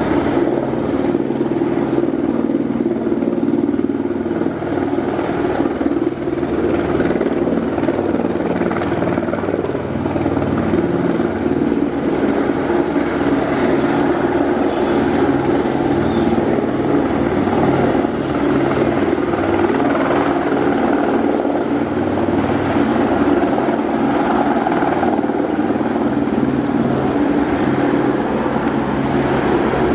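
Helicopter running overhead: a loud, steady rotor and engine drone that holds level throughout.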